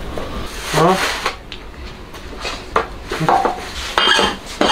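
Cleaver and utensils clinking and scraping against metal bowls and a tray as meat is cut up and portioned, with a few separate clinks later on.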